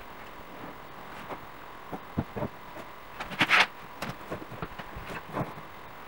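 Furniture being handled and moved in a room: a few scattered light knocks and bumps, with one louder scraping rustle lasting about half a second near the middle.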